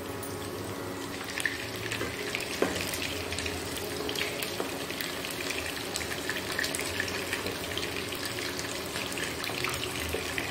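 Battered chicken pakoras frying in oil in a nonstick wok on low heat: a steady fine sizzle and crackle. A few sharper pops in the first few seconds, and the spatula turning the pieces.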